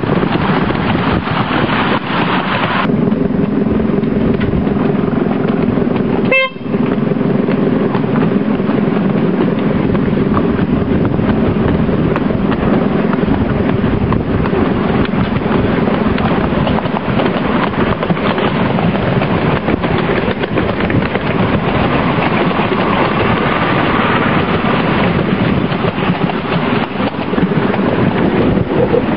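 Miniature ride-on railway train running along the track, heard from on board: a steady noisy rumble of the train and its wheels with a low steady hum, and a brief dropout about six seconds in.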